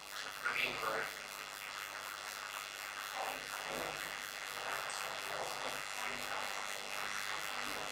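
Faint, indistinct voices over a steady background hiss.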